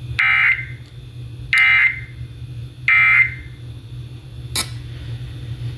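Emergency Alert System end-of-message signal: three short digital SAME data bursts about a second and a half apart, marking the end of the broadcast warning, over a steady low hum from the radio receiver. A brief click follows near the end.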